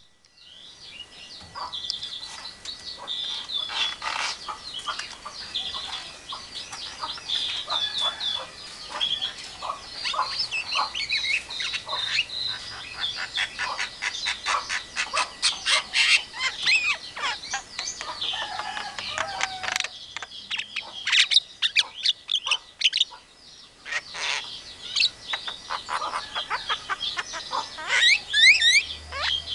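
Caged Javan myna (jalak kebo) calling: a varied, chattering run of chirps, clicks and squawks with short whistles, ending in a quick series of rising whistles.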